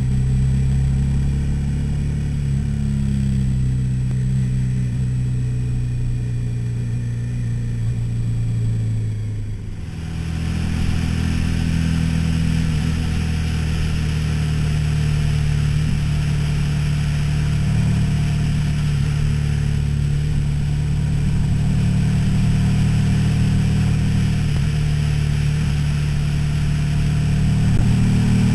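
Suzuki SV-series V-twin motorcycle engine running steadily at road speed, heard from a camera on the bike, with wind rush. About ten seconds in the engine note dips briefly and changes pitch, then it runs on steadily with more wind noise.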